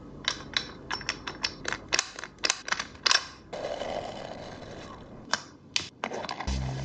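Quick run of sharp clicks from a gel blaster, about a dozen in the first three seconds, then two more a little later. Music comes in near the end.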